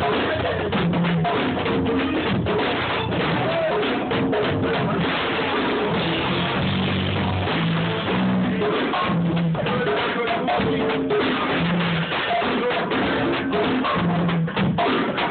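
Hip-hop beat playing: a drum kit with kick and snare over a repeating bass line.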